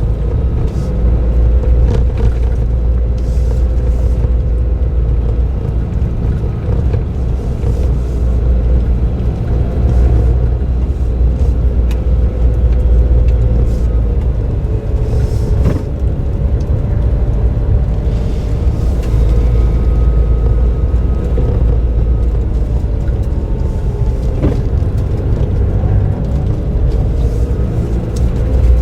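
Suzuki Jimny JB23W with an aftermarket muffler driving, heard on board: steady engine and road noise with a deep rumble, the engine note rising and falling a little with the throttle. A couple of sharp knocks, about halfway through and again later.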